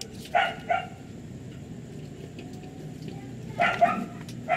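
A dog barking in short yaps: two quick barks about half a second in, two more near the end and one at the very end. Faint clicks of plastic battery connectors being handled lie in between.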